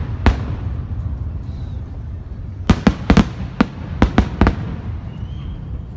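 Aerial fireworks shells bursting with sharp, echoing bangs over a low rumble. One bang comes just after the start, then there is a lull of about two seconds, then a quick run of about eight cracks.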